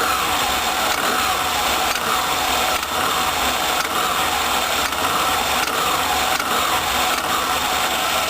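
Yamaha GP800 WaveRunner's two-stroke twin engine running steadily.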